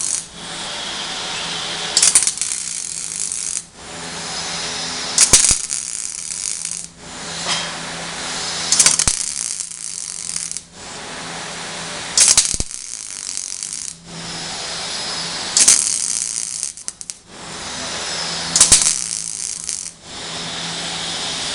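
Electric arc welding on a broken joint of a steel scaffolding pallet: about seven crackling, sputtering weld runs of roughly three seconds each. Each run starts with a sharp strike of the arc and ends abruptly, with a short pause between runs.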